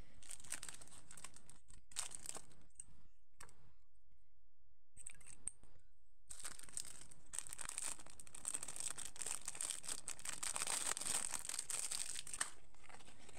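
Thin clear plastic wrapping crinkling and tearing as it is pulled open by hand. It comes in short bursts at first, pauses briefly, then runs continuously from about six seconds in until near the end.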